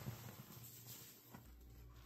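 Faint wet squishing of a sudsy sponge being squeezed and worked by hand, with a couple of soft ticks.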